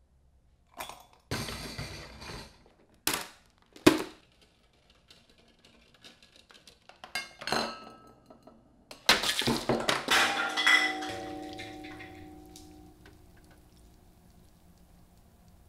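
Household objects in a homemade chain reaction machine knocking, sliding and clattering one after another. About nine seconds in comes the loudest part: a rattling clatter with a metallic ring that fades away over about three seconds.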